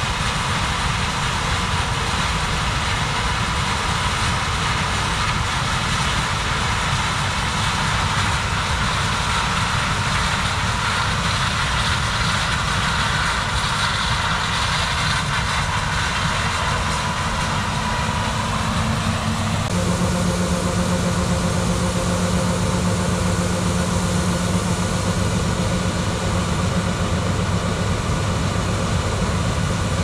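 The engine of heavy farm machinery runs steadily under load with a dense, even noise. About two-thirds of the way in, the engine note changes abruptly and a steady low tone comes in.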